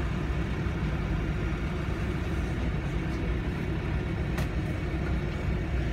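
Canal tour boat's engine running steadily, a low rumble heard on board, with one brief click about four seconds in.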